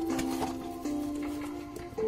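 Background music of held notes, stepping from one chord to the next, with a few light clicks of cardboard packaging being handled.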